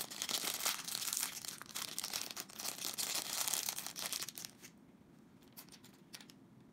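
Thin clear plastic bag of small building-block pieces torn open and crinkled for about four and a half seconds, then a few light clicks as the small plastic bricks are handled.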